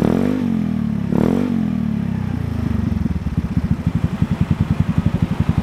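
A 110cc automatic scooter's single-cylinder engine running through an aftermarket racing exhaust. It gives two short throttle blips in about the first second and a half, each rising and falling in pitch, then drops back to an even, pulsing idle.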